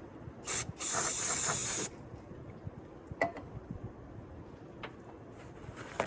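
Aerosol spray can hissing: a short burst, then a steadier spray lasting about a second. A few light metallic clicks follow.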